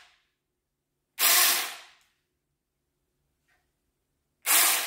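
Saker mini cordless chainsaw running free in short trigger bursts: its electric motor and chain whir up sharply about a second in and again near the end, and each burst winds down over about half a second.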